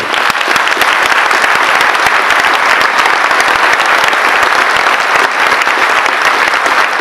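Audience applauding: many people clapping loudly and steadily.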